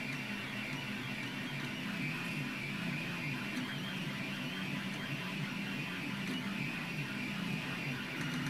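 Anycubic Kossel delta 3D printer printing: its stepper motors whine in tones that wander up and down in pitch as the print head moves, over a steady fan hiss.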